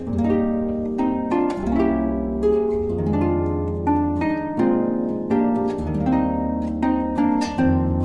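Instrumental background music: a run of plucked, harp-like notes over a low bass line.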